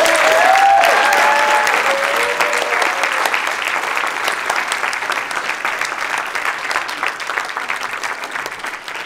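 Audience clapping, with a few cheering voices over it in the first three seconds; the applause then slowly dies down.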